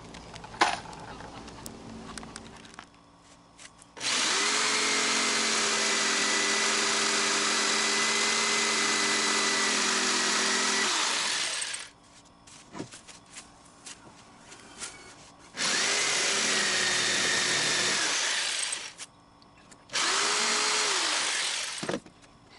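Corded electric saw cutting through a weathered 2x4 board in three runs: one long cut of about eight seconds, then two shorter cuts. Each run has a steady motor whine that starts quickly and winds down when the saw is released.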